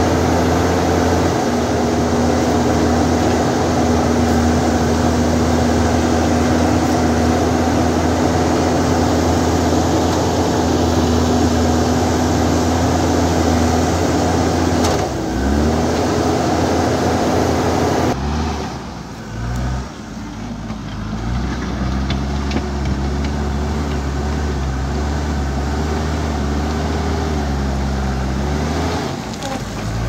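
JCB 3DX backhoe loader's diesel engine running under working load while it digs and pushes dirt and rock. Its note holds steady at first, dips and recovers briefly, then rises and falls repeatedly in the second half as the machine works.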